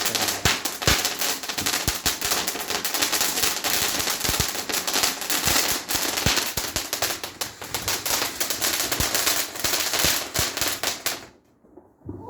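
A firework crackling: a dense, rapid run of sharp pops that cuts off suddenly about eleven seconds in.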